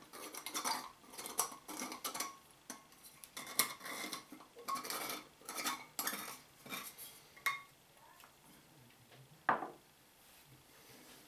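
Quick light clinks and clicks of a small glass jar and its screw lid being handled and screwed shut, then, after a quieter stretch, a single sharp knock as the jar is set down on a wooden table near the end.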